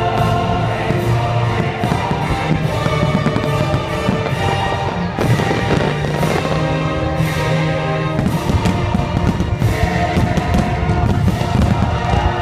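Fireworks finale: aerial shells bursting in quick succession, many bangs close together, over the show's loud music soundtrack.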